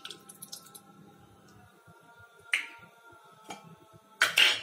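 Hand handling a stainless steel mixing bowl of curd marinade: a sharp tick about halfway through, a fainter one a second later, and a brief, louder rustling noise near the end as the hand works over the bowl.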